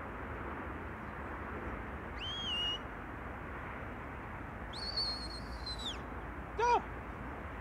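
Sheepdog handler's whistle commands to a Border collie working sheep: a short whistle that rises and levels off about two seconds in, then a longer, higher whistle that drops at its end, followed near the end by a brief, lower falling call.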